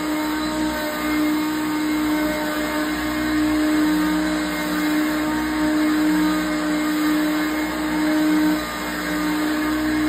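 Hoover Concept One upright vacuum cleaner running on carpet: a steady motor hum with a strong whine, its level swelling and dipping slightly as it is pushed back and forth.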